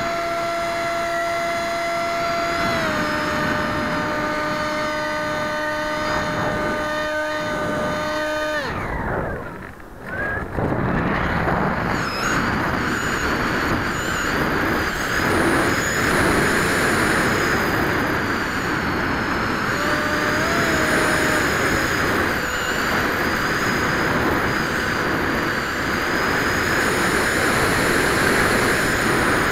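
High-pitched whine of a 3000Kv brushless inrunner motor and propeller on a Zaggi flying wing, heard from onboard; the pitch steps down slightly about three seconds in and the whine stops just before nine seconds. After a brief dip, a loud rushing wind noise takes over, with fainter motor tones wavering under it.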